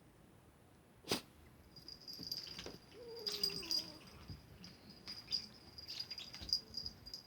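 A cat playing with a toy: a sharp knock about a second in, then a high rattling and jingling on and off through the rest.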